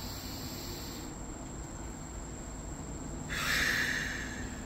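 Controlled yoga breathing (7-6-7 breath): a soft breath drawn in through the nose that ends about a second in, then, about three seconds in, a slow breath blown out through the lips lasting over a second.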